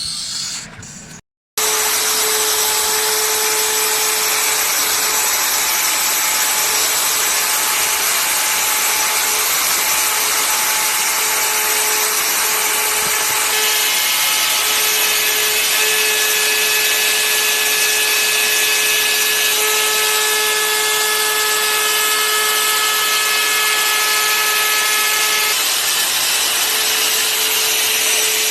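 Power tool running steadily and cutting into wood: a dense cutting noise over a steady motor whine. It starts abruptly after a short gap about a second and a half in.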